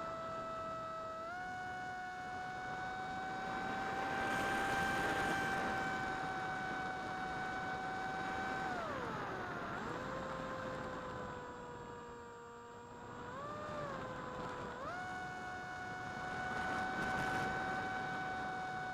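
Electric motor and propeller of a Versa Wing RC flying wing, heard through its onboard camera: a steady whine with several overtones that steps up a little about a second in, glides down as the throttle is pulled back about halfway through, blips briefly, then climbs back to the higher whine near the end. Airflow rush swells and fades twice over it.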